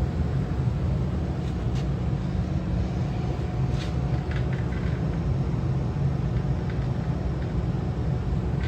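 Coleman furnace's blower running steadily in cooling mode, a low, even drone with a faint steady tone above it. A few faint ticks come about four seconds in.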